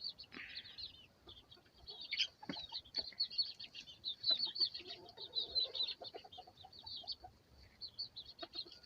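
Baby chicks peeping in a steady stream of short, high chirps, with a grown chicken clucking a few times about halfway through.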